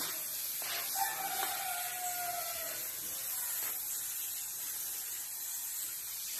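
Airbrush hissing steadily as it sprays paint. About a second in, a rooster crows once, a single long call lasting nearly two seconds.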